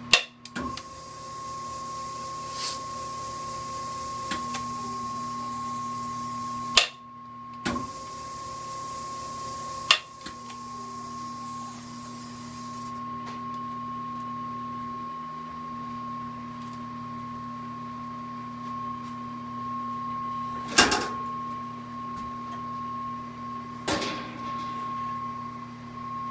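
South Bend 10 engine lathe running: a steady electric-motor hum with a clear whine over it. Several sharp clunks come through, the loudest about 21 seconds in, and a higher hiss drops away about halfway through.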